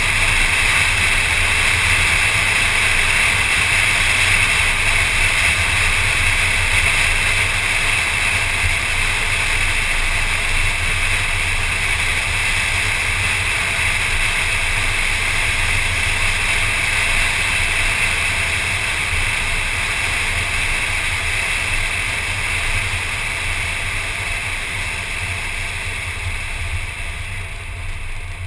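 Steady wind and road noise picked up by a hood-mounted GoPro on a moving car, with a low rumble under a hissing rush; it eases gradually over the last third.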